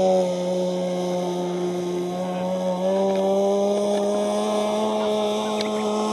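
Glow-plug engine of a Musashino Otenba GP RC model airplane running at high revs, a steady buzz as the plane rolls across grass on its take-off run. The pitch sags a little at first and steps up about three seconds in; the plane is slow to lift off, short of thrust.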